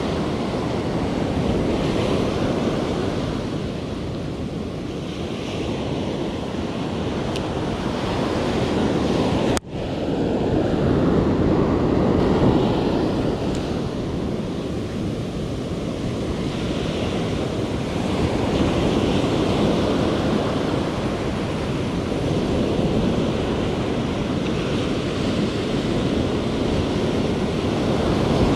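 Ocean surf breaking and washing up a sandy beach, a steady rushing that swells and eases with the waves. The sound drops out for an instant about ten seconds in.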